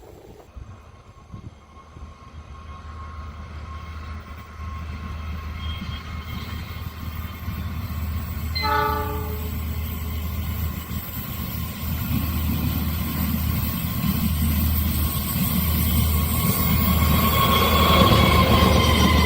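Train approaching and growing steadily louder over a steady low engine hum, with one short horn blast about nine seconds in.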